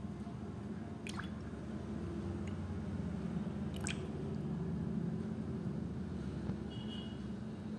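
A straw drawn out of a glass of thick mango drink, with a couple of small drips or clicks about one and four seconds in, over a steady low hum.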